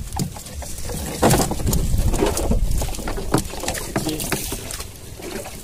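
Irregular knocks and splashing in and around a small fishing boat, over a steady low rumble.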